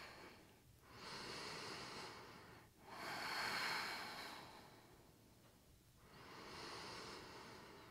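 A woman breathing deeply and audibly while holding a yoga pose: three faint, slow breaths, each a soft rush of air that swells and fades, with short pauses between them.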